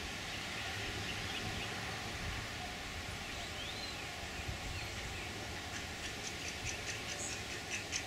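Outdoor ambience: a steady low hiss with a few faint bird calls, a short whistled note about three seconds in and several sharp high chips over the last two seconds.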